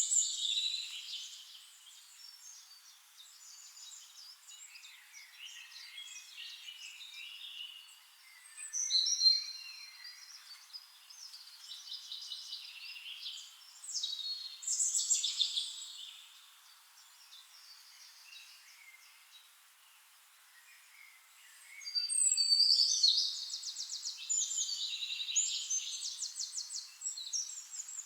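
Songbirds singing in a forest: separate bursts of high chirps and quick trills with quieter gaps between them, the longest and loudest stretch of rapid trilling about 22 seconds in.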